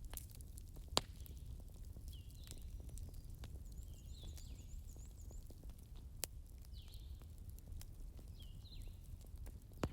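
Wood fire crackling, with a low steady rumble, many faint ticks and three sharp pops. Short falling chirps repeat about every second over it, with a quick run of higher chirps near the middle.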